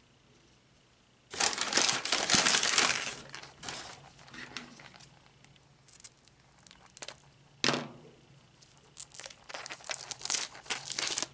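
Paper bag rustling loudly for a second or two as a hand rummages inside it, followed by lighter handling noises: small plastic clicks and crinkling as a plastic surprise egg is picked up and handled.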